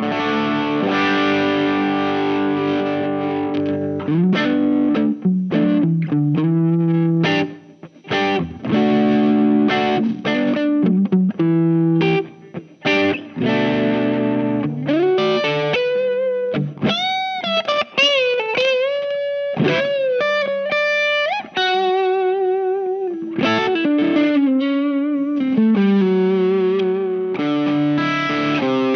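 Electric guitar with humbuckers played through the Tube Screamer-style overdrive side of a Visual Sound Jekyll & Hyde V1 pedal into a Ceriatone OTS Mini 20 amp: driven chords and riffs, with a single-note lead line of string bends and vibrato in the middle.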